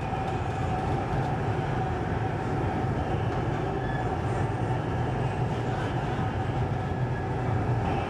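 Interior of a Düwag articulated tram running: a steady low rumble with a faint steady hum through it.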